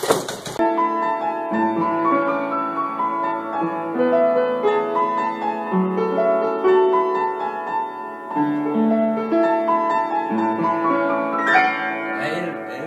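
Upright piano played in a slow, flowing piece. Near the end a cat steps onto the keyboard, and the playing breaks into clashing notes and knocks before it fades. A short burst of scuffling noise comes at the very start.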